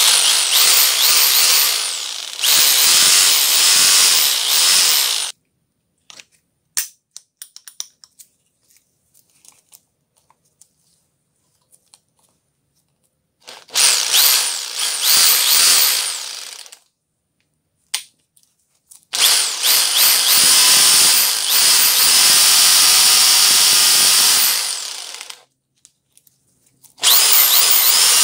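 DeWalt DW566 SDS-plus rotary hammer running with no load in four bursts of a few seconds each, the motor whining up to speed at each trigger pull, with small clicks between runs. It is a test run after the worn armature shaft was replaced and the tool cleaned and regreased.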